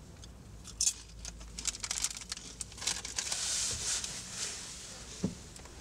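Foil crisp packet crinkling and rustling as a hand rummages in it, a run of sharp crackles that is loudest about three to four seconds in. A short low thump comes near the end.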